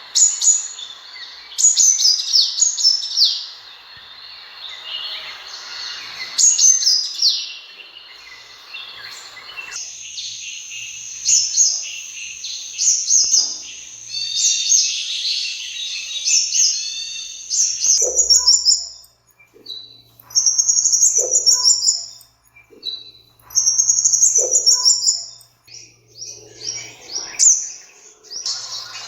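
Sunbird calling: rapid, high-pitched chirps and trills. From about two-thirds of the way in, the calls come as short twittering bursts repeated every few seconds.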